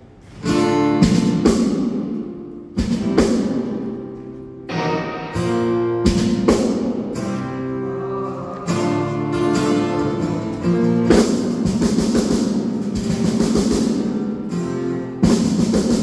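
A rock band playing live on stage, led by an acoustic guitar strumming chords that are struck every second or so and left to ring out, with bass and electric guitar.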